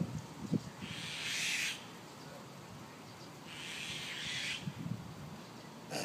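Myna giving two harsh, hissing calls about a second long each, roughly two and a half seconds apart, near the grounded fledgling that its parents are guarding.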